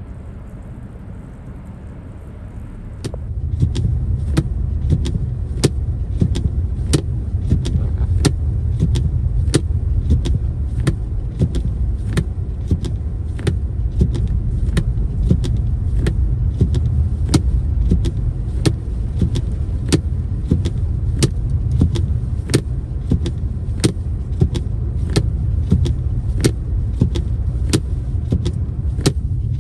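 Car running, with a steady low rumble that comes up about three seconds in, and a sharp regular click about every 0.7 seconds over it.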